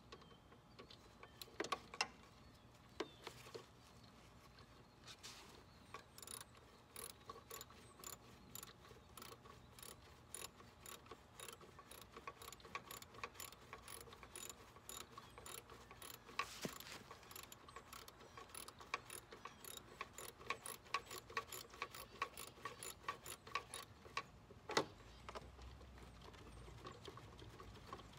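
Socket ratchet clicking as a bolt on a riding lawn mower is turned, a steady run of short clicks a few times a second, with a few louder metal knocks near the start and one near the end.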